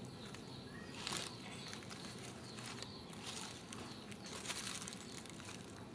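Faint outdoor ambience broken by three brief rustling noises: about a second in, around three seconds and around four and a half seconds.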